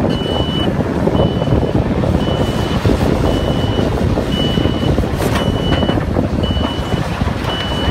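Large SANY hydraulic excavator's diesel engine running under load as its bucket works broken sandstone, with rock clattering a couple of times about five seconds in. A warning alarm beeps steadily about once a second throughout.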